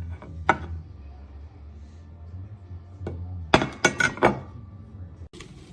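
Stoneware plates and bowls clinking together as they are handled: one ringing clink about half a second in, then a quick run of four or five clinks about three and a half seconds in.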